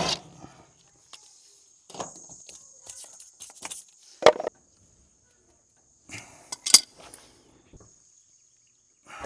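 Scattered sharp metal clinks and clicks of wrenches and brass flare fittings being handled while the refrigerant line set is connected to the mini-split condenser, the two loudest about four and six and a half seconds in. A steady high-pitched insect buzz runs underneath.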